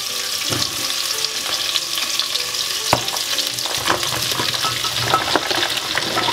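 Carrots and pumpkin sizzling in hot coconut oil in a steel pot. Several sharp knocks as the pumpkin cubes are tipped in from a plastic bowl.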